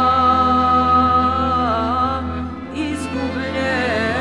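A woman singing in the traditional Bosnian devovanje style. She holds a long, steady note, breaks off briefly about two and a half seconds in, then starts another held note that wavers in pitch.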